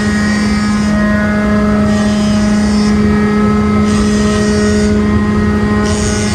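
Loud, steady machinery hum with a constant low drone and several steady higher tones. A high hiss switches on for about a second roughly every two seconds.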